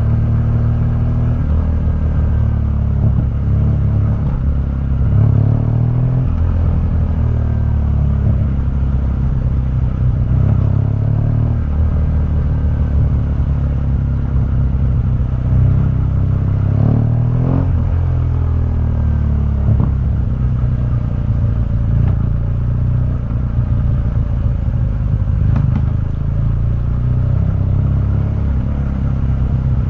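A 2015 BMW R1200GS's boxer-twin engine running through its stock exhaust while riding, its pitch rising and falling several times with throttle and gear changes.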